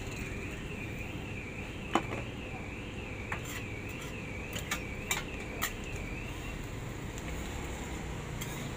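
Metal spatulas tapping and scraping on a steel flat-top griddle as a burger is cooked in an egg wrap: a handful of sharp clicks, the loudest about two seconds in and several more between four and six seconds. Behind it, a high warbling tone rises and falls about twice a second and stops a little after six seconds.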